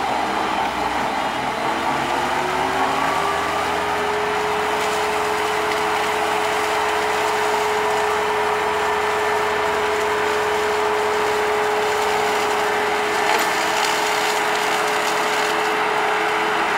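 MarshMaster tracked amphibious machine running steadily as it moves along the water's edge. A whine in its running rises in pitch a couple of seconds in, then holds steady.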